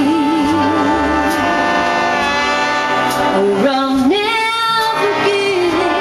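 A woman singing a 1940s swing number with a big band backing her. She holds long notes with a wide vibrato and steps up to a higher note about four seconds in.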